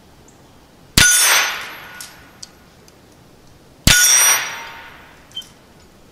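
Two .22 rifle shots from a Henry Frontier Long Barrel lever-action about three seconds apart, each hitting the steel target, which clangs and rings out for about a second. A few light clicks come between and after the shots.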